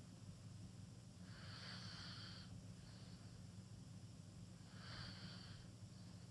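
A sleeping person breathing through a wide-open mouth: two faint, hissy breaths about three and a half seconds apart, over a steady low hum.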